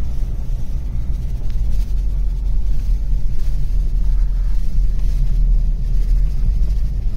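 Steady low rumble of a car driving along a concrete road, heard from inside the cabin: tyre and engine noise with no sharp events.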